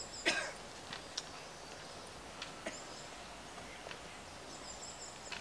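Faint, irregular taps of slow footsteps and a walking cane on stone paving, over a quiet outdoor background.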